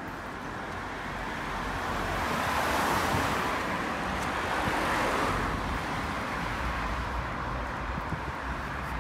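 Road traffic: a car drives past, its tyre and engine noise swelling to a peak about three seconds in and then fading back into steady traffic noise.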